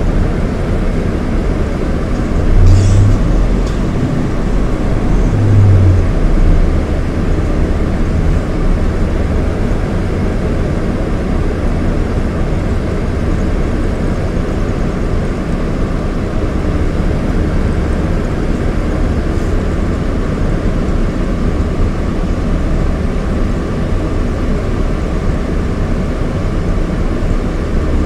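Scania DC9 five-cylinder diesel engine of a Scania K230IB coach running steadily under way, a low drone with road rumble. There are two louder low swells, about three and five and a half seconds in.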